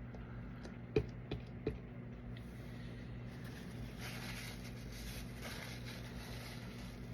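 A soft silicone resin mold being handled as the tube is worked out of it: a few light knocks about a second in, then soft rubbing and squishing of the silicone, over a steady low hum.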